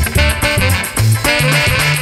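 Upbeat background music with a steady beat and a moving bass line.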